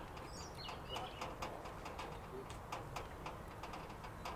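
Faint outdoor ambience with a few small, high bird chirps in the first second, over a steady low rumble and scattered faint clicks.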